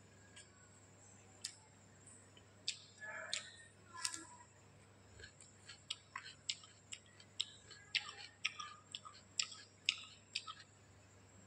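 Close-up eating sounds: a run of sharp, irregular clicks, sparse at first and coming several a second from about six seconds in.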